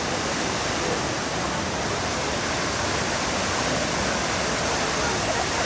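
Steady, loud rush of a large waterfall, the Kapuzbaşı falls, with water crashing continuously and no breaks.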